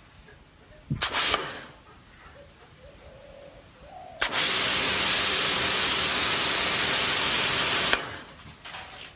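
Hissing spray: a short burst about a second in, then a long steady burst of about four seconds that starts and cuts off sharply.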